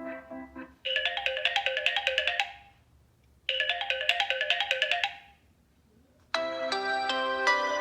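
Samsung Galaxy A6 (2018) stock ringtone: a fast run of bright notes lasting under two seconds, played twice with a short pause after each. The last notes of the previous tune fade just before it, and a fuller, different ringtone begins near the end.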